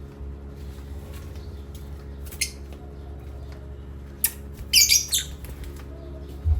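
A pet parrot squawking: one short squawk, then a louder wavering squawk about two-thirds of the way through, with a sharp click just before it, over a steady low hum.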